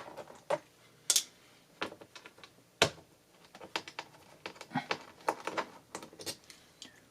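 Irregular small clicks and taps of a screwdriver backing the last screws out of a laptop's bottom cover, with a few sharper ticks among them.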